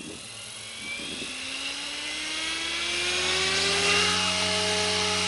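SAB Goblin 500 electric RC helicopter spooling up on the ground: the motor and rotor whine starts about a second in, rises steadily in pitch and loudness, and levels off near the end at a steady hum.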